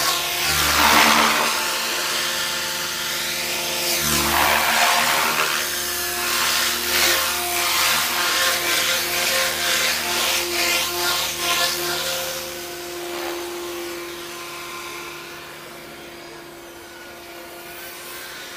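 Eachine Novice-I 75 micro FPV whoop's motors and propellers buzzing in flight, the pitch rising and falling with throttle. The level drops from about twelve seconds in.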